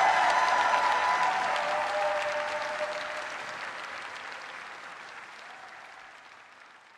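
Large stadium crowd applauding and cheering, with a few held voice tones over it until about three seconds in, the whole sound fading steadily away.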